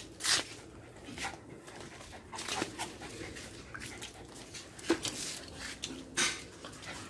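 A dog's small sounds, breaths and a soft whimper, among a few short scattered noises.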